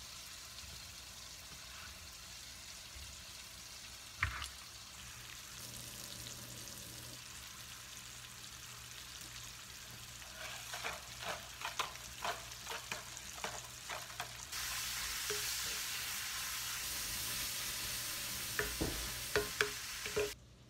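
Chopped bacon sizzling in a cast iron skillet, a steady hiss that suddenly gets louder a little past the middle. A utensil clacks and scrapes against the pan as the bacon is stirred, in a run of quick strokes about halfway through and again near the end, with a single knock about four seconds in.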